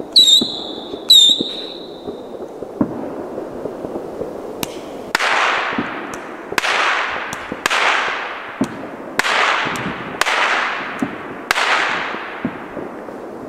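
Old "UFO" firework shot from 1997 going off: two whistles, each starting with a sharp crack, in the first couple of seconds. Then six hissing bursts, each starting sharply and fading over about a second, with scattered small pops throughout.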